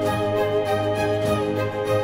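Background music: a held melody over a steady beat.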